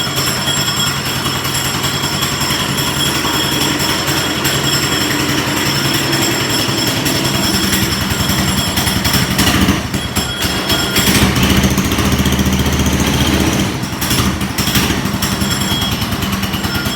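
Small single-cylinder Briggs & Stratton 3 hp engine on a go-kart running, its note and loudness shifting a few times as its speed changes.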